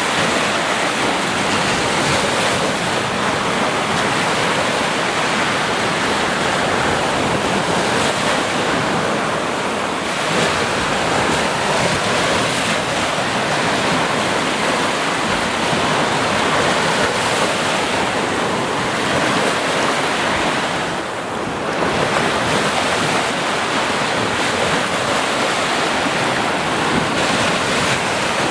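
Sea waves washing onto a beach in a steady, continuous surf with wind, dipping briefly about three quarters of the way through.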